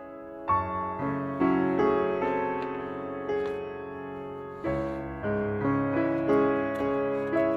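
Background piano music, a melody of struck notes that each fade before the next.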